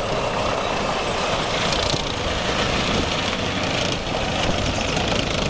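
Tracked main battle tank driving slowly on a concrete road: its engine and tracks make a steady, dense noise.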